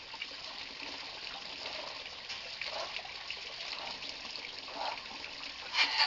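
Water from a garden hose running and spraying steadily, with a short louder noise near the end.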